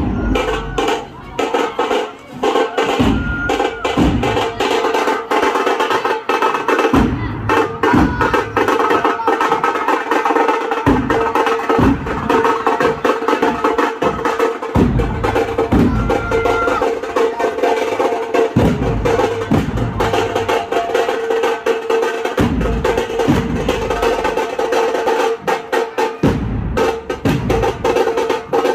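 Loud procession drumming: fast, continuous drum rolls with heavy bass-drum beats landing in clusters every second or two.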